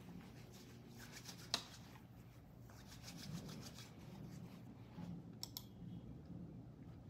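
Hands rubbing together softly, with one sharp click about a second and a half in and a few small clicks around five and a half seconds, over a low steady room hum.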